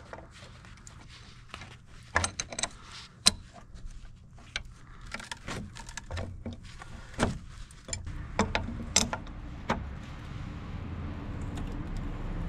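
Adjustable wrenches clinking and clicking on a tie rod end's nut and stud as it is turned down and tightened: irregular metal taps and scrapes, with a low steady rumble building in the last few seconds.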